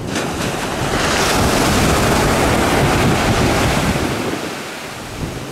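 Surf breaking and washing up a sandy beach, swelling about a second in and easing off near the end, with wind buffeting the microphone.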